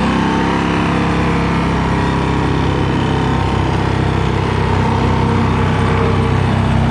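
Vehicle engine running steadily at low speed, heard from inside the vehicle, its pitch level throughout.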